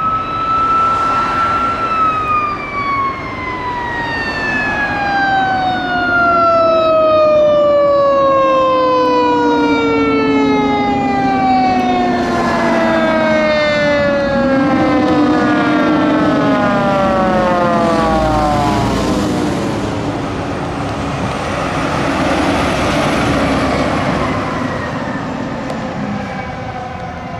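Fire engine siren rising briefly, then winding down in one long, slow fall in pitch over about fifteen seconds. A lower steady tone sounds for about two seconds midway, a truck engine rumbles past, and another siren starts up near the end.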